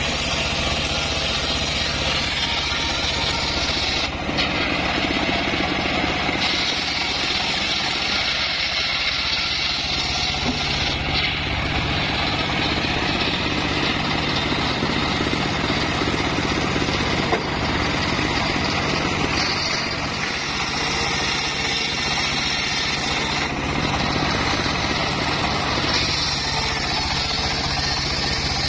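Homemade table circular saw driven by a stationary engine, running steadily while boards of mahogany are ripped on the blade. The higher cutting noise comes and goes in stretches of several seconds as each board is fed through, over the constant engine hum.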